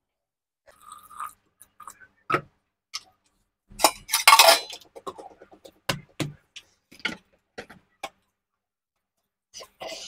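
Scattered clicks, clinks and knocks of an electric mixer's blender jar being handled as cold water is poured over soaked urad dal and the lid is pressed on, with a louder burst of noise about four seconds in.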